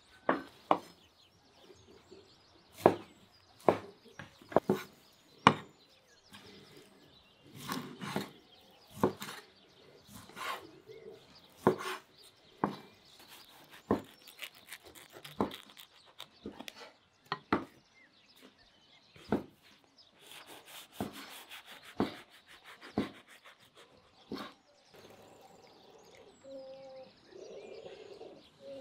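Sharp knocks at an irregular pace of roughly one a second, with a quick run of rapid taps about two-thirds of the way through. Birds call near the end.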